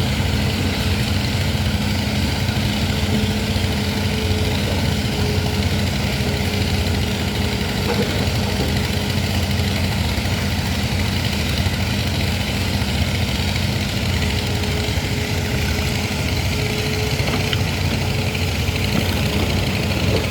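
Excavator diesel engine running steadily, a low even drone with a held hum.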